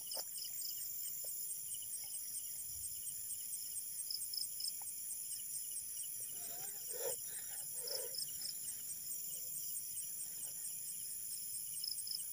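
Night insect chorus: crickets chirping steadily, a high chirp repeating at an even pace with other pulsed chirps layered under it. Soft handling rustles of a cardboard matchbox break in about six to eight seconds in.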